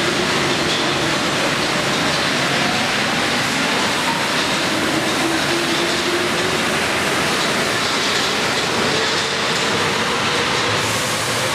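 MP 59 rubber-tyred metro train pulling out and passing close by, a steady loud rolling rumble with a faint whine that rises slowly in pitch as it gathers speed.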